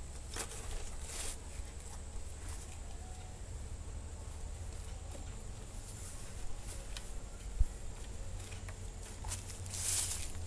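Fabric bags and gear being handled and packed on a wooden table: rustling with small knocks, one sharper thump about three quarters of the way through, and a zipper starting to be pulled near the end. Wind rumbles on the microphone underneath.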